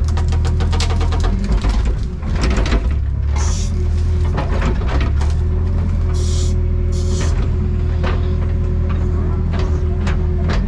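Excavator engine running steadily under load, with repeated sharp cracks and knocks as the machine works through trees and brush, and a couple of brief hissing bursts.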